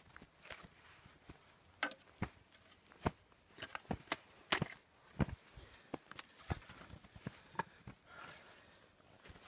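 A small bushcraft snow shovel digging into and scraping through snow, with boots crunching in the snow: an irregular run of short, sharp crunches and scrapes.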